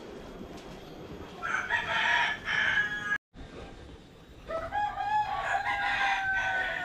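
Rooster crowing twice: one crow about a second and a half in, then a longer crow from about halfway, its drawn-out last note falling slightly.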